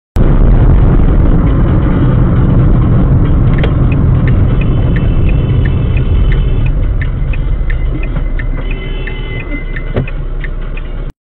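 Heavy, steady rumble of a car's engine and road noise heard inside the moving car. From about four and a half seconds in, a string of short high beeps and scattered clicks sounds over it, with a sharper knock near the end.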